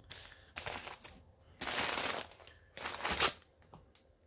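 Plastic bubble mailer crinkling and rustling as it is handled, in about four short bursts, the last the loudest.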